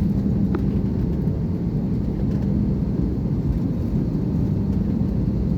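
Airbus airliner's jet engines and airflow heard from inside the passenger cabin: a steady low rumble with a constant hum.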